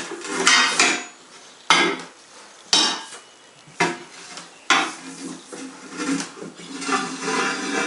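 Steel tire spoon clanking and scraping against the wheel rim and the manual tire changer as it is worked around to lever the tire's top bead off the rim. About five sharp metallic knocks roughly a second apart, each ringing briefly, then a stretch of scraping and rubbing near the end.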